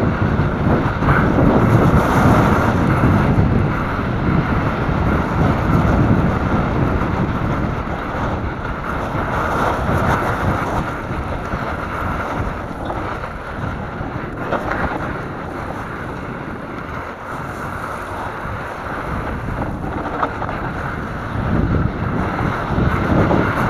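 Wind buffeting the camera's microphone on a fast mountain-bike descent, mixed with the rumble and rattle of the bike's tyres over loose dirt. It eases off in the middle and picks up again near the end.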